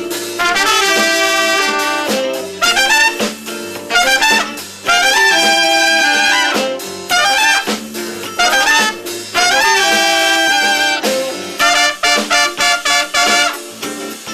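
Horn-led jazz music: phrases of held notes that stop and restart every second or two.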